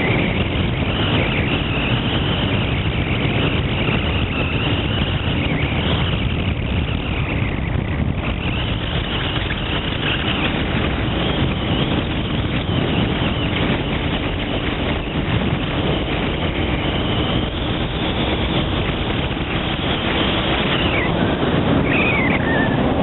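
Motorcycle riding along a city street: engine running steadily under way, mixed with road and wind noise.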